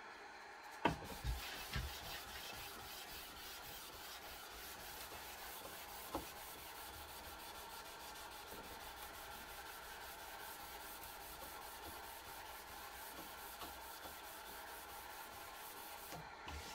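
Hand sanding with 800-grit sandpaper on a block, rubbing steadily back and forth across the end grain of a wooden dovetail joint. There are a few light knocks in the first two seconds.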